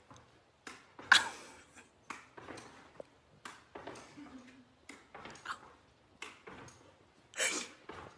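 Irregular thumps and clicks of a dog's paws landing and scrabbling as it leaps and spins around, in a small room, the sharpest about a second in and a longer scuffle near the end.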